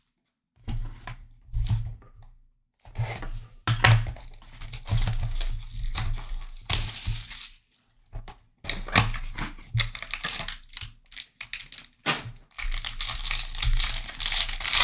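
A 2022-23 Panini Prizm Choice trading-card box being torn open by hand, then its foil pack handled, crinkling: irregular bursts of tearing and rustling with short pauses.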